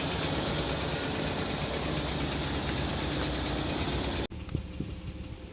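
Rebuilt Maruti Suzuki Alto 800 three-cylinder petrol engine idling steadily. It cuts off abruptly about four seconds in, leaving a quieter background with a few light clicks.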